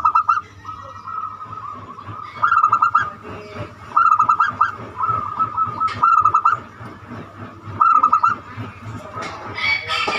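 Zebra dove (perkutut) singing its cooing song over and over, about five phrases of quick clicking notes with long purring coos between them. A rooster starts crowing near the end.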